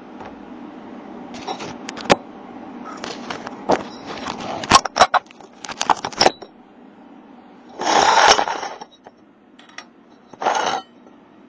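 Handling noise as a protective cover is taken off the camera lens and the camera is moved: a run of sharp clicks, knocks and light rattles, then two short rushing bursts about eight and ten and a half seconds in.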